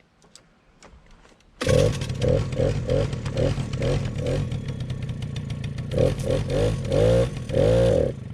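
Suzuki LT-A50 ATV's small two-stroke single-cylinder engine starts about a second and a half in and revs up and down in repeated short blips. It cuts off suddenly near the end, shut off by the newly fitted kill switch, which is working.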